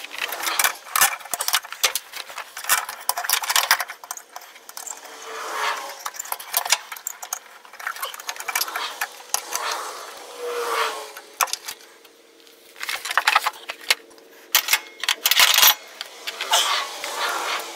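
Irregular metallic clinks, clanks and scrapes: steel rods and brackets of a riding mower's deck linkage being handled and hooked back into place.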